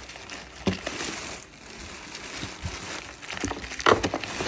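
Grocery packaging crinkling as it is handled, with a few sharper rustles, the loudest near the end.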